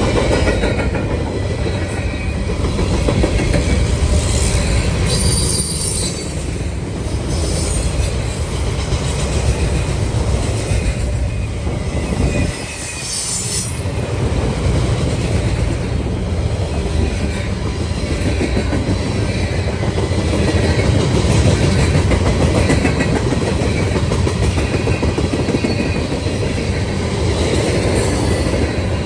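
Railroad cars of a passing train rolling by with a steady rumble and the clickety-clack of wheels over rail joints. Brief high-pitched wheel squeals come a few seconds in and again near the middle.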